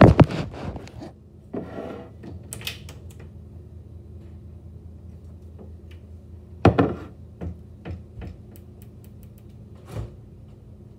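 Knocks and rubbing of a phone being handled and set down, then a loud knock and a scatter of small clicks and rattles as a refrigerator door is pulled open, over a steady low hum.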